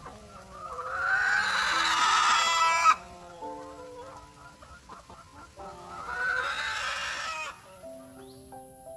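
A rooster crowing twice, each crow rising and then held for about two seconds before breaking off, the second coming about six seconds in. Background music with held notes plays underneath.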